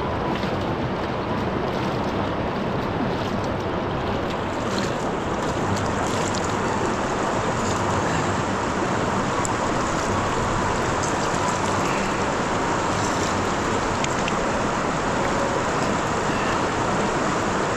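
Shallow river rushing over a bed of rounded stones, a steady rush of water close by.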